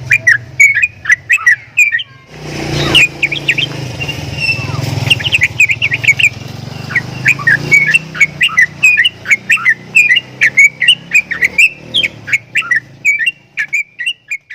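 Javan myna calling in a rapid run of short, sharp chirps and whistled notes, the odd call the bird is kept for, with a brief rushing noise about two and a half seconds in.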